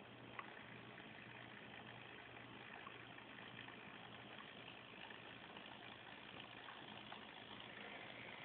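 Faint, steady hum of a radio-controlled model crane's small electric motor lowering its lattice boom, with a light click about half a second in.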